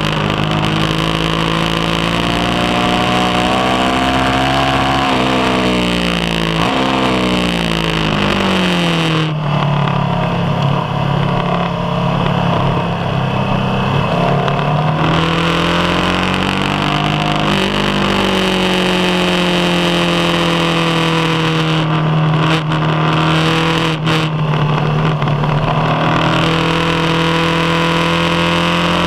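BMW HP2 Sport's boxer-twin engine under hard track riding, the revs climbing over the first few seconds, dropping away for several seconds, then held and rising again several times through the lap. Wind rush runs under the engine note.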